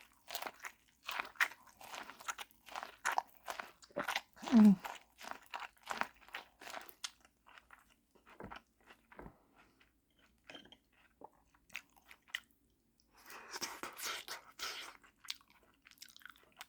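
Close-up chewing and crunching of food, with wet mouth clicks, densest in the first several seconds and sparse after. About four and a half seconds in comes the loudest sound, a brief low vocal sound falling in pitch, and near the end a couple of seconds of denser noise.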